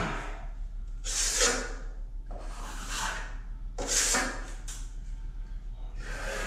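Steel drywall trowel scraping setting-type joint compound across the wall and against the hawk, in a series of separate scraping strokes about a second apart.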